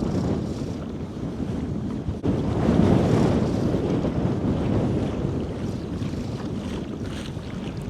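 Wind buffeting the microphone in gusts that swell and ease, over the slosh of wind-driven chop against a kayak. The level dips briefly about two seconds in.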